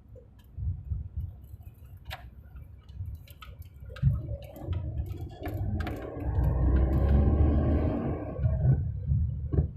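Manual car driving over a rough off-road track: a low rumble with scattered knocks and rattles, and the engine note swelling louder from about four seconds in before dropping away near the end.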